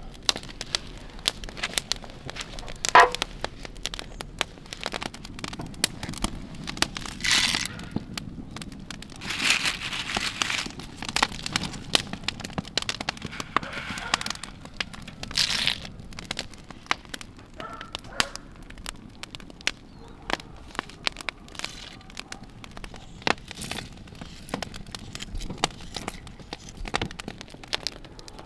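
Wood fire crackling with irregular sharp pops, the loudest about three seconds in, and a few short hisses.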